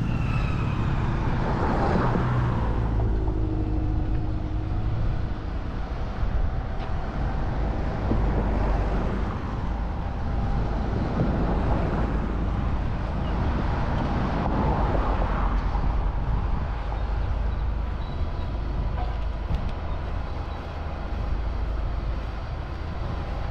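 Steady low rumble of engines and traffic noise, with a faint hum over it and no sudden events.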